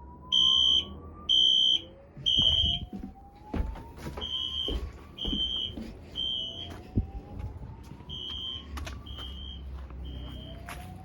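Fire alarm system sounding: a high-pitched alarm beeping in groups of about three half-second beeps with short pauses, loud for the first few seconds and quieter after. Under it a fainter rising whoop tone repeats about every four seconds, with a few sharp clicks.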